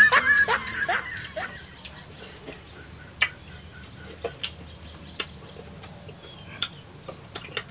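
Mouth noises of people eating santol fruit, sucking the pulp off the seeds: scattered sharp smacks and clicks every second or so. A few short falling vocal sounds trail off in the first second and a half.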